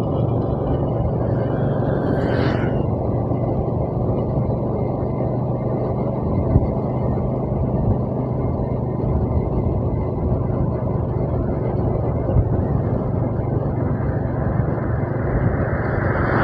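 A vehicle's engine running steadily on the move, with road and wind noise.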